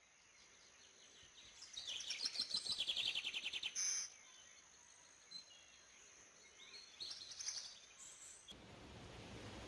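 Wild bird singing: a fast, loud trill of rapid notes falling in pitch, starting about one and a half seconds in, then a shorter phrase near the end.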